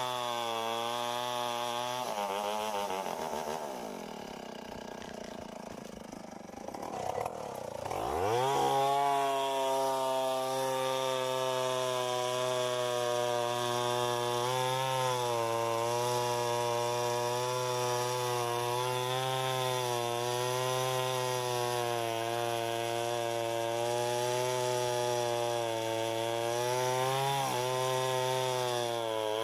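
Two-stroke chainsaw cutting mango wood. Its engine sinks to a low, slow run about two seconds in, revs sharply back up around eight seconds, and then runs at high revs, with the pitch dipping slightly as the chain loads in the cut.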